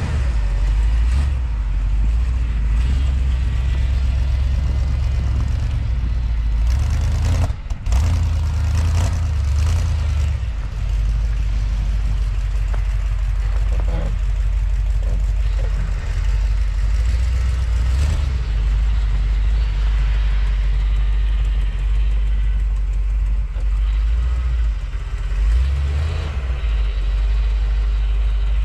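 1979 Ford F250 pickup's engine running as the truck is driven through snow, its rumble stepping up and down with the throttle. A brief break comes about seven and a half seconds in.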